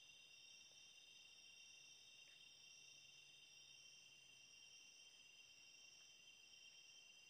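Faint, steady chorus of night insects such as crickets, a continuous high-pitched trill that never breaks.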